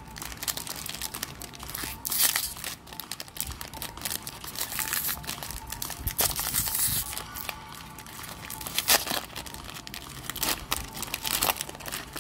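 Foil wrapper of a Magic: The Gathering booster pack crinkling and tearing in the hands as it is opened: irregular crackles throughout, with louder bursts of crinkling several times.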